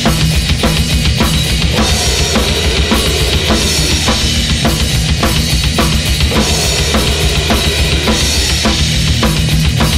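Loud heavy metal music driven by a full drum kit: kick drum and snare hits on a steady beat under a dense wall of band sound.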